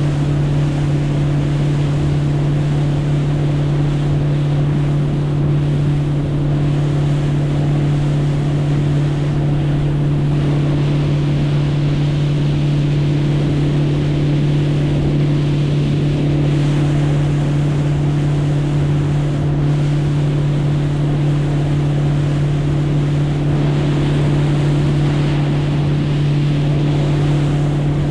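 A boat motor running at a steady, unchanging speed, a constant low hum, with water and wind noise over it.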